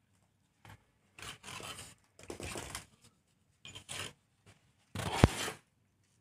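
Mason's steel trowel scraping and spreading cement mortar on a brick course in a series of short strokes, with one sharp knock, like the trowel tapping a brick, about five seconds in.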